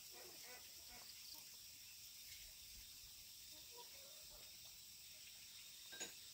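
Near silence: faint rural outdoor ambience with a steady high-pitched insect hum, a few faint soft sounds and one short click about six seconds in.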